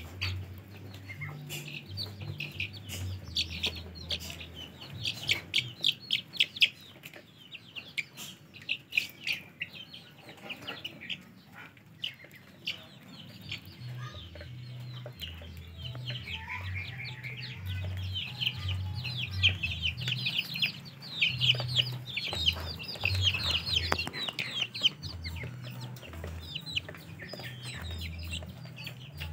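A group of young poultry peeping and chirping: many short, high calls in quick succession, coming in two busy spells, the first near the start and the second past the middle, with a low intermittent rumble underneath.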